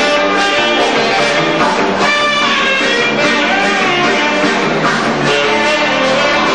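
Live dance band music with guitar prominent, playing steadily at a lively dance tempo.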